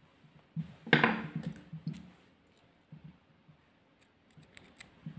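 Small scissors snipping through wool yarn, a few quick sharp clicks near the end, after a short handling noise of the crochet work about a second in.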